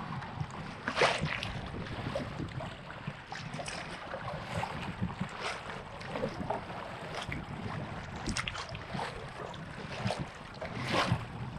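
Kayak paddle strokes splashing in choppy lake water, irregularly about once a second, with water lapping at the hull and wind buffeting the microphone.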